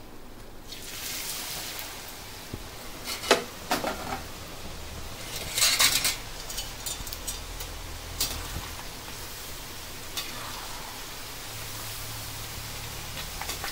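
Shredded potato strands frying in hot oil, a steady sizzle as the oil bubbles and foams around them, starting just under a second in. A few knocks and clatters of a utensil against the pan come through the sizzle.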